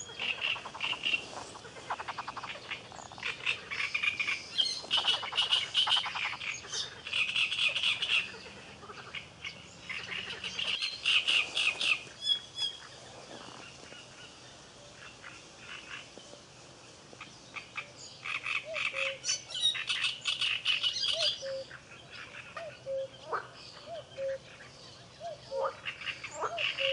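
Frogs croaking in repeated bursts of rapid pulsed calls, with a lull partway through and short, softer chirps near the end.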